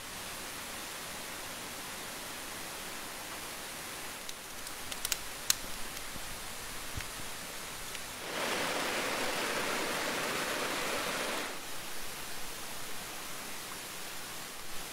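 Shallow rocky creek flowing steadily, with a few sharp clicks about five seconds in and a louder rushing stretch lasting about three seconds past the middle.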